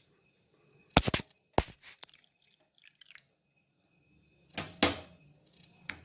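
A few sharp clinks and knocks of kitchen utensils against a strainer and bowl, a quick cluster about a second in and more near the end, with faint dripping of rinse water draining from fresh chhana in the strainer.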